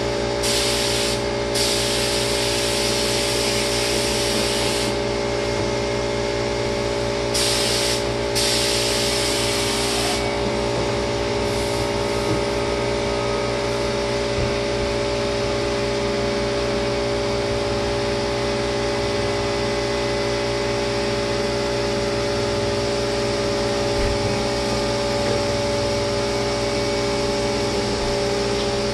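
Spray gun hissing as it sprays lacquer, in several bursts over the first twelve seconds (two long ones, about three and two seconds), then stopping. Under it a machine runs with a steady hum throughout.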